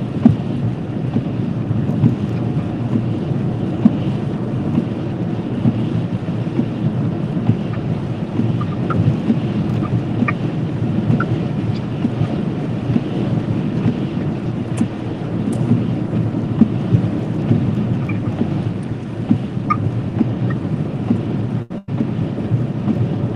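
Steady low rumble of road and wind noise inside a moving car, with a few faint ticks, briefly cutting out near the end.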